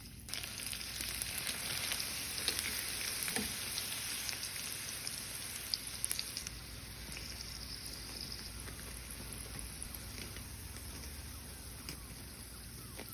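Siomai frying in hot oil: a steady sizzle full of small crackles and pops, starting abruptly and easing slightly after about six seconds.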